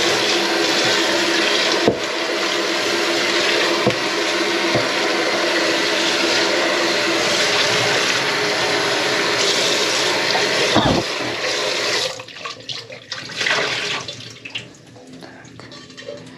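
Kitchen tap water running into and over a stainless-steel pot in a steel sink as it is rinsed out, with a few knocks of the pot against the sink. The tap is shut off about three-quarters of the way through, leaving quieter clatter as the pot is handled.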